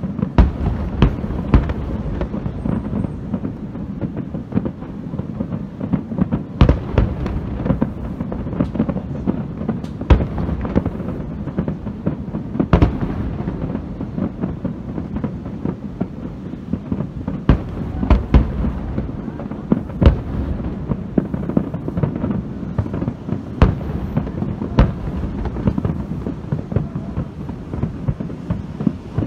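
Aerial fireworks in a finale barrage: shells bursting in rapid, overlapping succession. The booms run together into a continuous low rumble, with sharper cracks standing out every second or two.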